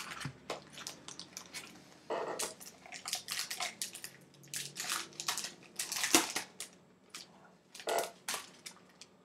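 Foil trading-card pack wrapper crinkling and tearing, with the cards being handled: a run of irregular crackles and rustles that thins out near the end.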